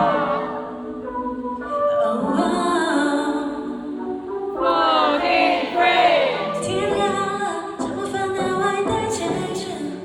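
A woman singing live over instrumental backing during a soundcheck, with curving, wavering held notes about five seconds in.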